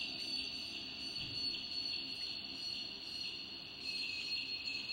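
Crickets chirping in a steady, high-pitched chorus.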